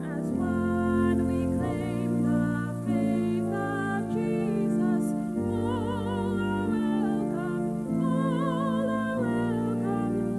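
A church hymn: one voice singing a melody with vibrato over sustained keyboard chords that change every second or two.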